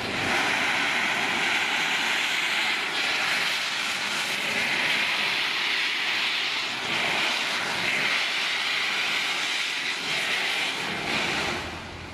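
Steam hissing loudly and steadily from the open cylinder drain cocks of A1 Pacific steam locomotive 60163 Tornado, with a few brief dips, falling away near the end.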